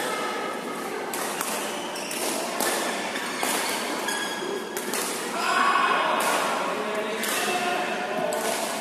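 Badminton rally: several sharp racket-on-shuttlecock hits a second or more apart, with short squeaks of court shoes on the floor between them.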